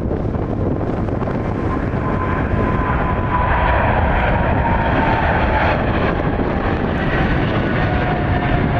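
Boeing 777-300ER's GE90 turbofans at take-off thrust as the jet rotates and lifts off. A whining tone slides slowly down in pitch over a deep rumble, and the sound gets louder about two and a half seconds in.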